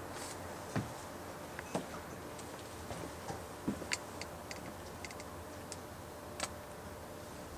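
Dishes being handled at a kitchen sink: a scatter of faint clinks and taps at irregular intervals over a steady hiss.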